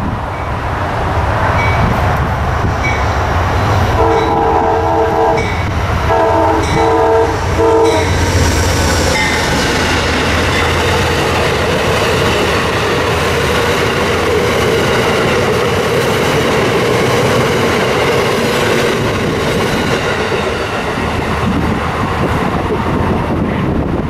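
Amtrak P42DC diesel locomotive sounding its air horn in two long chords about four seconds in. The locomotive and its passenger cars then pass, their steel wheels rolling and clattering on the rails.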